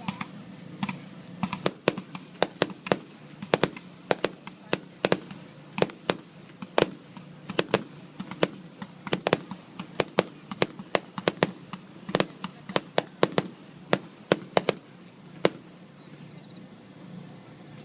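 Aerial fireworks bursting in a rapid barrage of sharp bangs, several a second, thinning out and fading about three-quarters of the way through.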